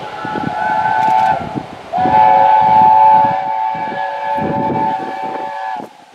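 Steam locomotive's chime whistle sounded twice, a short blast and then a longer one of about four seconds that sags in pitch as it cuts off, over the beat of the locomotive's exhaust as it passes.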